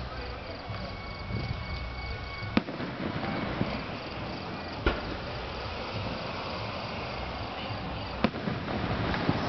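Aerial firework shells bursting overhead: four sharp bangs a few seconds apart, the last two about a second apart, over a steady background hiss.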